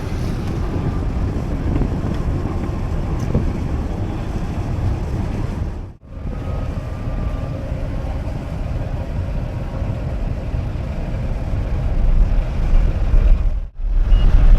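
Steady low rumble with wind buffeting the microphone, cut off sharply twice for a moment.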